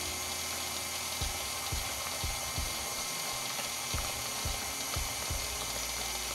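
KitchenAid Artisan stand mixer running steadily, its motor and gears whirring as the paddle beats thick cake batter, with a low knock about twice a second.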